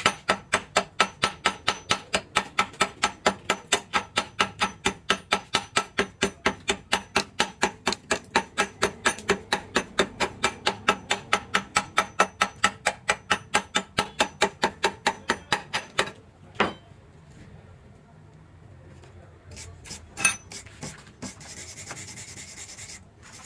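Quick, even scraping strokes on metal, about four a second, stopping abruptly about sixteen seconds in; a few separate knocks follow.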